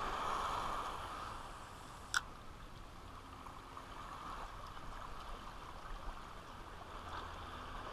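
Calm water lapping gently with a faint, steady wash, plus a single sharp click about two seconds in.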